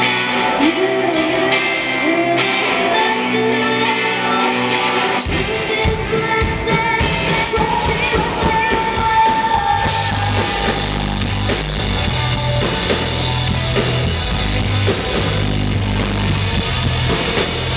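Live indie rock band playing with singing, heard from the crowd in a hall. The music grows deeper about five seconds in and fuller about ten seconds in, as the footage cuts between sets.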